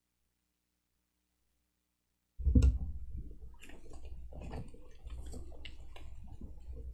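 Silence, then the lectern microphone cuts in with a thump about two and a half seconds in, followed by a low hum and scattered soft clicks and rustles of pages and handling at the lectern.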